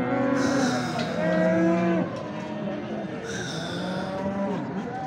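Cattle mooing: one loud, drawn-out moo over the first two seconds that breaks off sharply, then fainter lowing through the rest.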